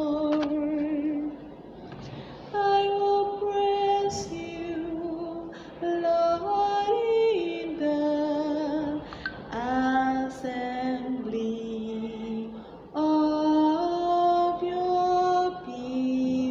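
A woman singing a slow psalm melody, holding long notes with slight vibrato, in short phrases with breaths between them.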